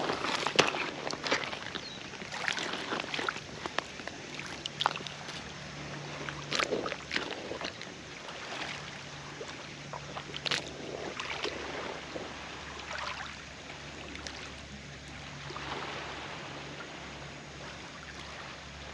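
Water lapping and sloshing irregularly, with occasional sharper splashes and a faint steady low hum underneath.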